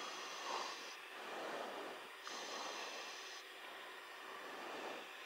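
A person breathing slowly into a live aircraft intercom microphone. Each breath swells as a hiss over a steady background of cockpit noise.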